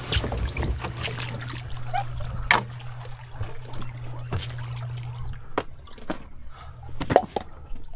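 Water trickling and splashing around a kayak as it is paddled in against rocks, with several sharp knocks and splashes. A steady low hum runs under it for about the first five seconds.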